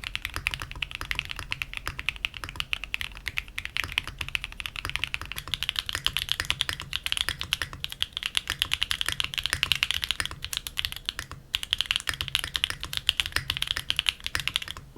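Fast, continuous typing on a Mode Sonnet mechanical keyboard with a carbon fiber plate and plate foam, a dense run of key clicks with a brief pause near the three-quarter mark.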